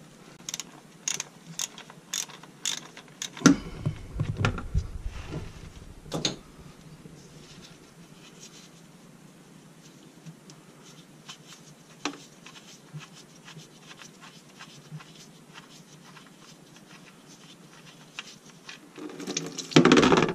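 Ratchet clicks and tool-on-metal knocks as the sump drain plug is worked loose, with a low bumping rumble about four seconds in. Near the end a loud noisy rush as the warm engine oil starts to pour into the drain tray.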